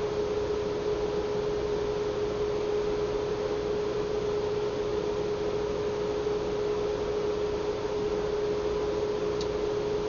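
Steady electrical hum: one unchanging mid-pitched tone over a constant hiss.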